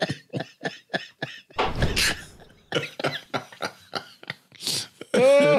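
Men laughing hard, breathless and wheezing in quick short bursts, with a harsh cough about two seconds in and a louder voiced laugh near the end.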